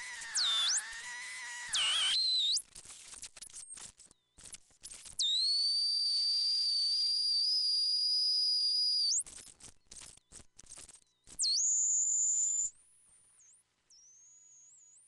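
Homemade CMOS noise synth, four 4093 Schmitt-trigger NAND oscillators mixed through a 4070 XOR gate, giving out shrill electronic whistling tones as its knobs are turned. Warbling, swooping tones at the start give way to broken crackling. A steady piercing high tone holds for about four seconds in the middle, more crackling and dropouts follow, then a shorter high tone and quieter gliding tones near the end.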